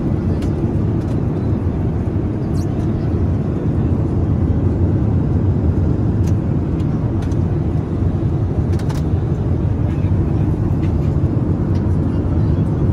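Steady low rumble of a Boeing 787's cabin in flight: engine and airflow noise heard from an economy seat, with a few faint clicks.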